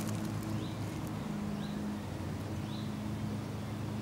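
Steady low mechanical hum, with a bird's short high chirps repeating about once a second.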